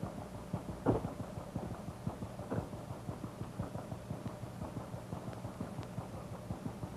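Fishing boat's motor running, a steady rapid chugging of about five beats a second over a low hum. Two louder knocks stand out, about one second and two and a half seconds in.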